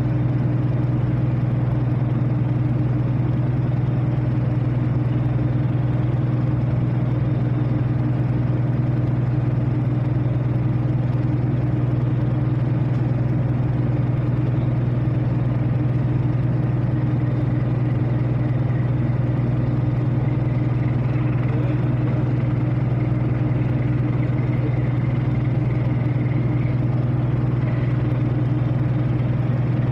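Steady low drone of a ship's diesel engine heard from on deck: a deep, even hum with a few higher overtones.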